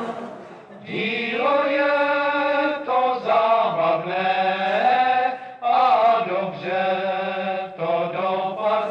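Voices singing a slow melody in long held notes, with short breaks between phrases.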